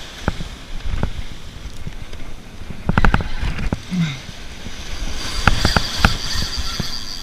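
Spinning reel and rod being worked hard against a hooked brown shark, with clusters of sharp clicks and rattles about three seconds in and again near the end, and a thin high whine in the last two seconds, over steady surf and wind noise.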